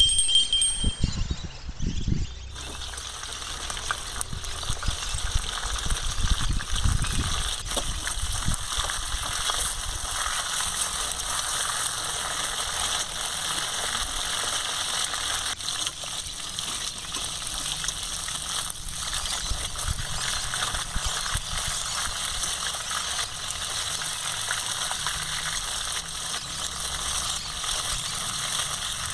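Fish heads frying in hot oil in a wok, a steady sizzle, with a few knocks of a metal spatula in the first seconds. A brief high electronic ding at the very start.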